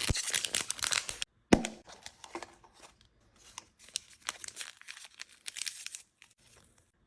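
Plastic packaging crinkling and tearing as miniature items are unwrapped by hand, with one sharp click about a second and a half in and scattered crinkles that die away near the end.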